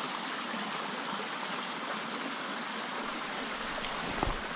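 Small mountain stream running over rocks: a steady, even rush of water. A brief low thump comes about four seconds in.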